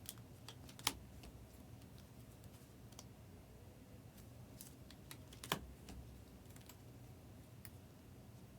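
Sparse light clicks and taps over a faint low hum, with two sharper clicks about a second in and again midway.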